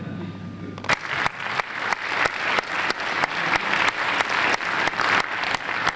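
Audience applauding in a cinema auditorium: a dense patter of many hands clapping that starts about a second in and swells a little toward the end.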